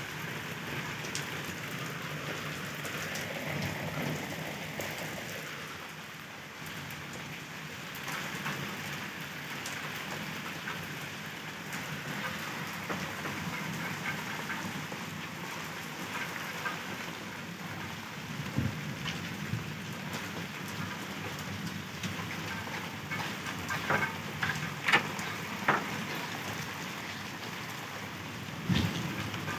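Steady rain falling on a wet, muddy dirt yard, with a few louder sharp taps in the last few seconds.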